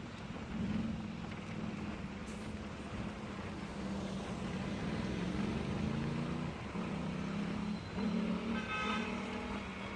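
City street traffic: motor vehicle engines run steadily nearby, and a car horn honks briefly near the end.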